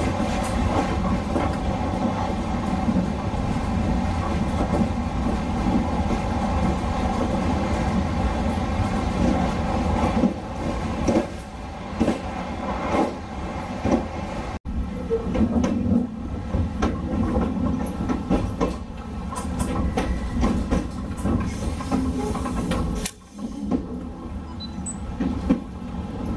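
Hokutosei sleeper train running slowly through a station yard, heard from inside its rear car: a steady rumble and hum, with the wheels clicking over rail joints and points from about ten seconds in.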